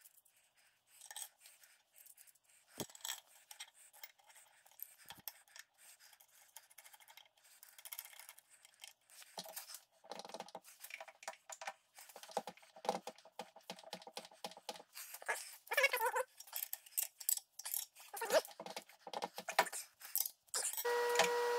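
Cast-iron hold-down clamps and a steel wrench clinking and scraping on a drill press's iron table as a workpiece is clamped down, in irregular knocks and clicks. Near the end the drill press motor is switched on and runs with a steady hum.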